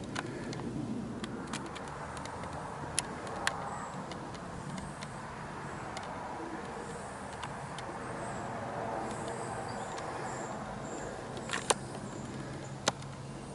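Steady low outdoor background rumble with a few sharp clicks: two about three seconds in and two more near the end.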